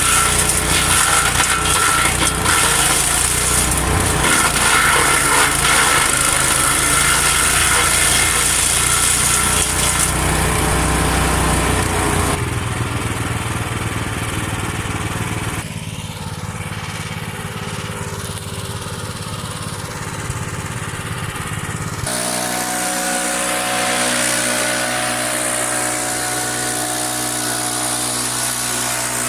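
Petrol wood chipper running and chipping branches. The sound changes abruptly about 12, 16 and 22 seconds in, and the last stretch is a steadier engine run with less chipping noise.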